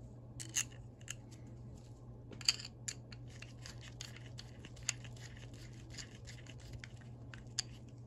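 Screwdriver turning small steel screws into the cover plate of a Proto 5449-14BL ratchet head: light scraping and clicking of metal on metal, with a handful of sharper ticks.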